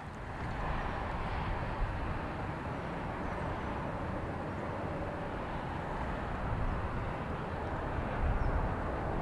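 Steady outdoor background noise: a distant low rumble under an even hiss, with no distinct events.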